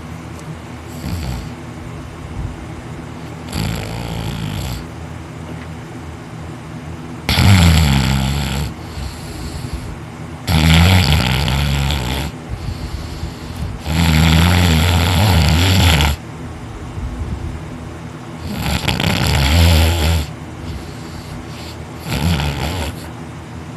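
A man snoring heavily in deep sleep, one snore every three to four seconds, each lasting one to two seconds. The first snores are faint, four loud ones follow in the middle, and a weaker one comes near the end.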